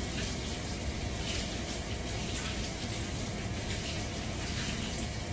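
Hot cooking oil in a frying pan, a steady hiss with faint crackling.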